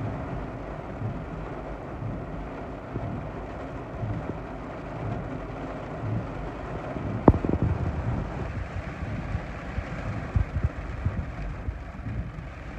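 Heavy thunderstorm rain and gusty wind: a steady rush with uneven low wind rumbles on the microphone, and one sharp knock about seven seconds in.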